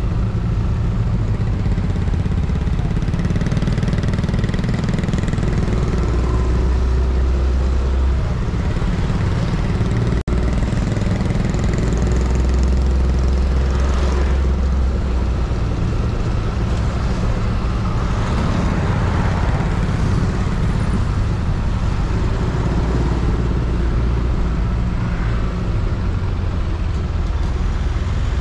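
Yamaha Aerox scooter riding along a street, its engine and road noise heard from a bike-mounted camera as a steady low rumble that swells and eases several times. The sound drops out for an instant about ten seconds in.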